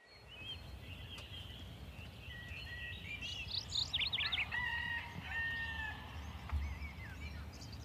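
Dawn birdsong in open country: assorted birds chirping, trilling and whistling, busiest from about halfway through, over a steady low rumble.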